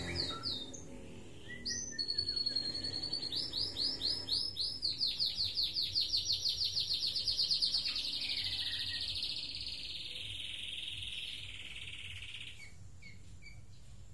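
White-rumped shama (murai batu) singing a long, fast trill of repeated high notes, about five a second, that blurs into a buzz and fades away after about ten seconds.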